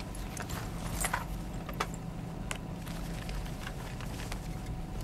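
Steady low hum of a car's engine and road noise heard inside the cabin, with a few small clicks and rustles of things being handled about one, two and two and a half seconds in.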